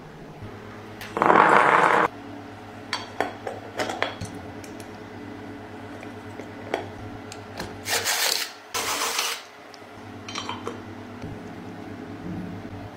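Workshop handling of metal parts: a loud noisy burst about a second in, a few light metallic clicks and taps, then two short hissing bursts under a steady low hum.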